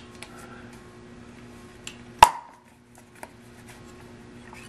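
Caulking gun clicking as its trigger is worked to push urethane adhesive out of the tube, with one loud, sharp metallic clack about two seconds in.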